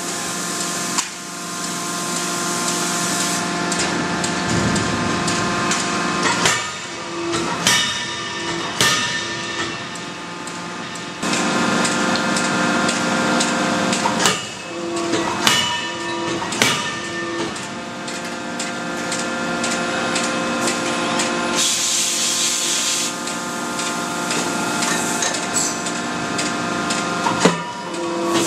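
Automated closed-die forging line: a steady machinery hum with several held tones, broken by sharp metal impacts from forging hammer blows and clanking dies and billets, some coming in quick runs of three or four. About 22 seconds in there is a short hiss, about a second and a half long.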